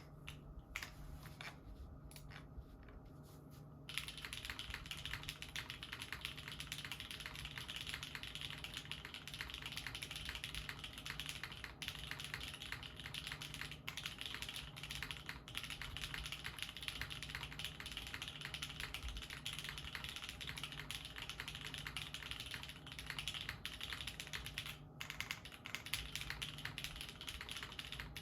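Typing on a Jalter top-mount custom mechanical keyboard with an aluminium plate, Nolives switches lubed with 205g0, TX stabilisers and GMK Maestro keycaps: a steady run of key clacks that starts about four seconds in, after a few isolated keypresses.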